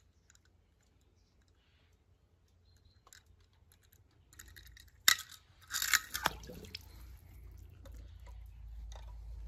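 A few short crunching, clicking sounds about five and six seconds in, like small objects being handled or scraped on a rough surface, followed by a low steady rumble.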